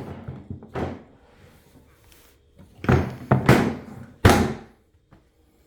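Hard plastic Ryobi LINK tool boxes knocking and clunking together as they are handled and fitted onto one another: a couple of thunks early, then a louder run of clunks a little after the middle.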